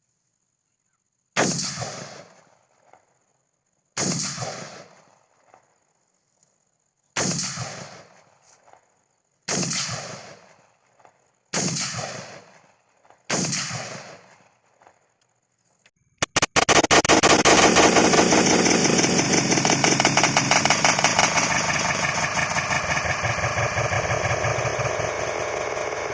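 Six single gunshots, unevenly spaced about two to three seconds apart, each followed by a short echoing decay. Then, past the middle, a continuous loud dense noise with a fast even flutter takes over.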